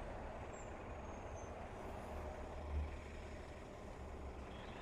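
Faint low rumble of distant road traffic, swelling a little around the middle.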